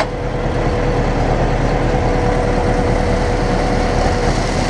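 Ursus tractor's diesel engine running steadily while it works the mounted Troll T-274 hydraulic grab loader, which lifts a load of manure. A steady high tone holds over the engine note until near the end.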